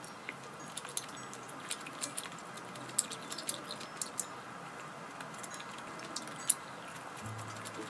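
Scattered light clicks and taps of chopsticks and tableware against dishes during a meal, irregular and short.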